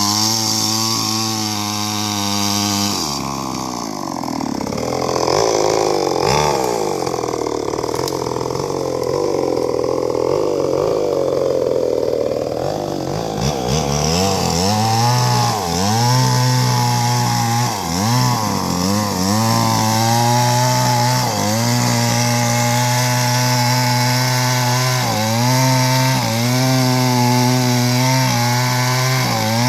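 Two-stroke chainsaw cutting into a rubber tree trunk. The engine note sags and wavers under load for about ten seconds starting a few seconds in, dips and recovers several times, then runs steadily to the end.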